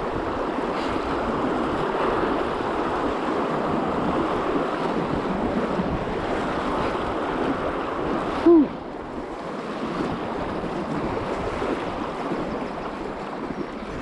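Rushing whitewater of river rapids around an inflatable canoe, with wind buffeting the microphone. About eight and a half seconds in there is a single short squeak, the loudest sound in the stretch.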